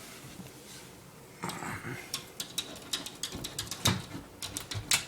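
A puppy scrabbling about, its claws clicking and tapping on a hard floor in quick irregular taps that start about a second and a half in.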